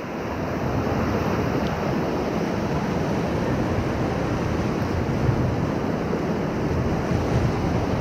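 Whitewater rapids of the Ocoee River rushing steadily around a raft.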